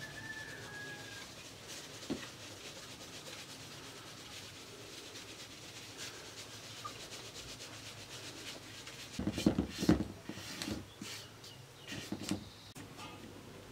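Flour being sifted through a round wooden-rimmed sieve over a metal basin: a soft, steady rubbing rustle with small ticks. About two-thirds of the way in, and again a little later, come short runs of louder knocks and rattles as the sieve is handled.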